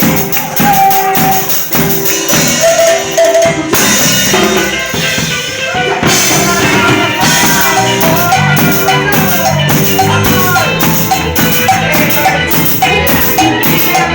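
Live cumbia band music with a drum kit prominent, playing a steady beat under a melodic line. The high cymbal strokes drop out for about two seconds around four seconds in, then return.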